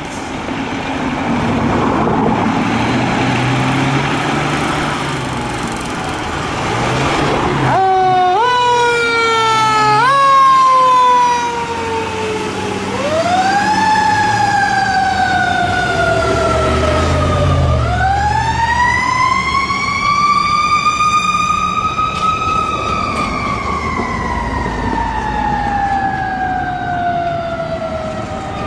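Fire truck sirens and truck noise. First a loud broad rumble of the truck. About eight seconds in, a siren starts with several quick jumps up in pitch, each sliding back down. From about thirteen seconds on, a long slow wail rises and falls in pitch twice.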